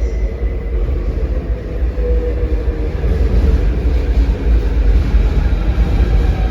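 Train running, heard as a steady low rumble with a noisy rattle over it.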